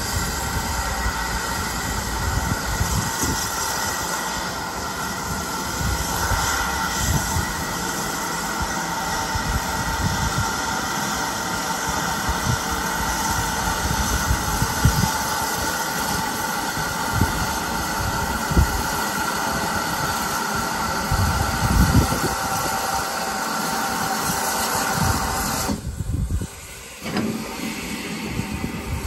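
Steam hissing steadily from a standing GWR 4575 class small prairie tank locomotive, No. 5553, with uneven low rumbles underneath. The hiss cuts off sharply about three seconds before the end.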